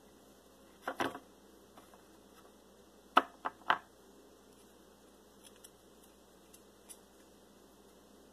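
Small plastic Play-Doh cup and mold pieces clicking and tapping as they are handled: a short cluster of clicks about a second in, then three sharp clicks in quick succession around three seconds in, and a few faint ticks after.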